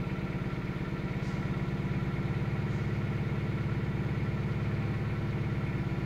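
A 2000 Toyota Celica GT's 1.8-litre four-cylinder engine idling steadily with an even, rapid pulse. The engine has a dead ignition coil on cylinder 2 that makes it misfire intermittently.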